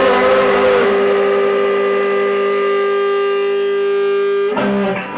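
Live amateur band music: a long chord held steady for several seconds, then new notes strummed or struck near the end.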